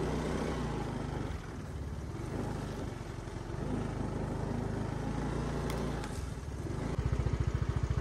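Motorbike engine running as the bike moves along a dirt trail, a steady low drone that turns into an even, rapid throb about a second before the end.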